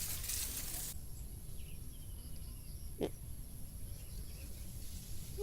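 Low steady rumble of wind on the microphone with a faint bird chirp, and a single sharp click about three seconds in. A hiss stops about a second in.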